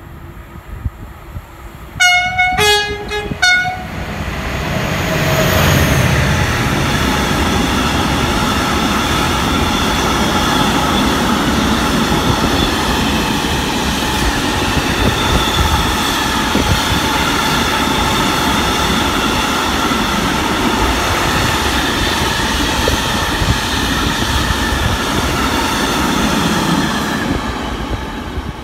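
Freight train passing through a station: the locomotive sounds a few short horn blasts that change pitch, about two seconds in. A long string of hopper wagons then rolls past close by for over twenty seconds, a steady loud rumble with high ringing tones from the wheels, easing off near the end.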